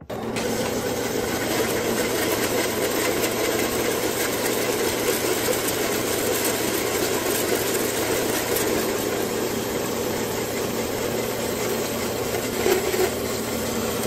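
Horizontal metal-cutting band saw running steadily, its blade cutting through a thin steel plate clamped in its vise.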